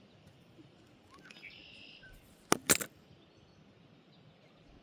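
Two sharp clicks in quick succession about two and a half seconds in, preceded a second earlier by a brief high chirp, over faint outdoor background.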